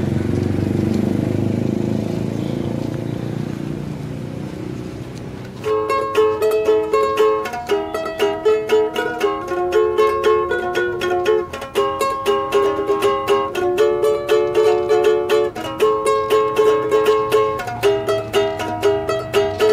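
Low outdoor background rumble, then about six seconds in a ukulele starts strumming chords in a steady rhythm and keeps playing.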